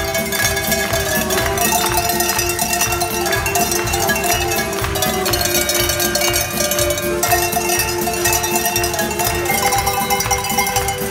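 A tuned set of hand-shaken cowbells played as a melody, each bell ringing on with its clapper rattling, over a steady drum-kit beat.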